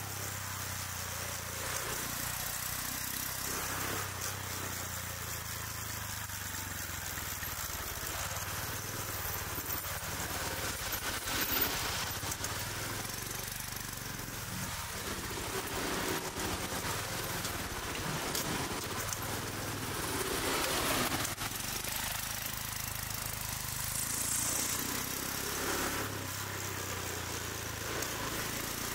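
City street traffic at road level: motor scooters and cars running and passing close by over a steady engine hum. One vehicle sweeps past with a rising sound about twenty seconds in.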